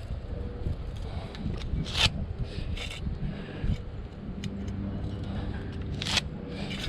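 A few sharp metallic clicks and scrapes of small fasteners being handled, clearest about two seconds in and again about six seconds in, over a steady low rumble.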